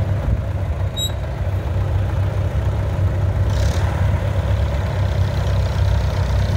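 1947 Earthmaster tractor's engine idling steadily, an even low-pitched engine note, with the tractor about to pull away.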